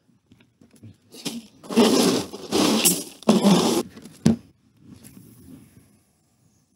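Scraping and clattering as a trout is put into a cooler, in three close bursts, then one sharp knock a little after four seconds in.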